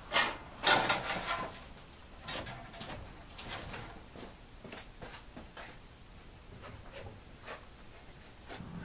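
Two sharp knocks in the first second, then faint irregular clicks and knocks as hands work at a Ford Model T's jacked-up rear wheel, turning it to rotate the engine.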